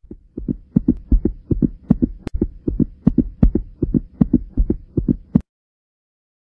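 Rapid pounding heartbeat sound effect, low thumps in quick pairs racing at about two to three beats a second, cutting off suddenly near the end.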